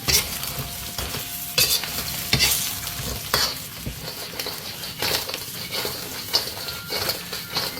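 Crisp deep-fried fish strips being stir-fried in hot oil with dried chillies, ginger and garlic in a wok: a steady sizzle with repeated scraping and tossing strokes of the spatula.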